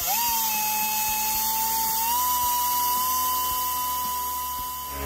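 A small handheld rotary grinder (Dremel-type) spins up sharply and whines steadily as its grinding point smooths out the gouged crank seal bore of a KTM 65 aluminium crankcase. Its pitch rises slightly about two seconds in.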